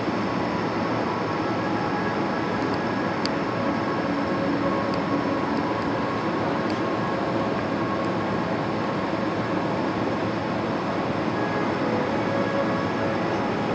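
Steady machine-like rushing noise with a faint hum, unchanging throughout, with a few faint ticks.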